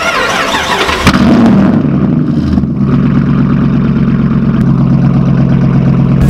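A vehicle engine cranks with a rush of noise and catches about a second in, then runs steadily at a fast idle.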